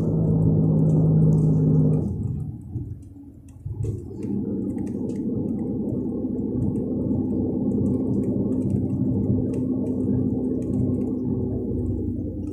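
The 360 hp MAN diesel engine of a MAN Lion's Regio coach, heard on board, running under load, then dropping away about two seconds in, almost silent for a second or so, then picking up again and running steadily with a different pitch: a gear change on its manual six-speed gearbox.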